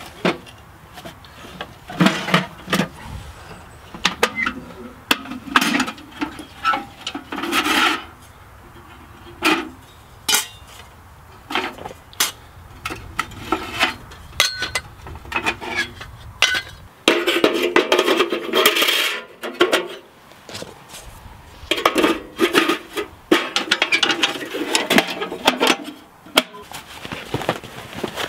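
Repeated metal clanks, clinks and scrapes of a homemade .50-calibre ammunition-can wood stove being set up, its legs and sections of flue pipe fitted together. There are longer scraping passages in the second half.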